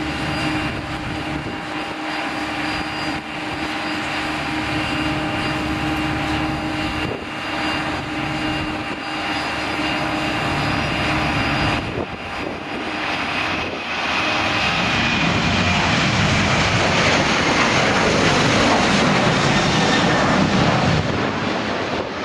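Jet engines of a Boeing 737 at takeoff power, heard across the runway. At first a steady whine with several held tones; after a sudden change about twelve seconds in, a louder, rougher rushing noise grows as the airliner lifts off and climbs out.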